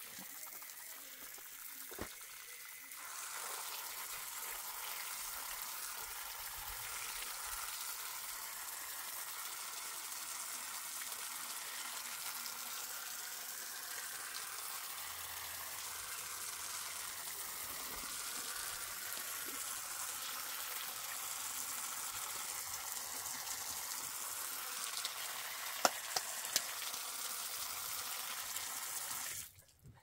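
Water spraying steadily from a garden hose spray nozzle onto loose soil around a young tree. The spray hiss gets louder about three seconds in. A couple of short clicks come near the end.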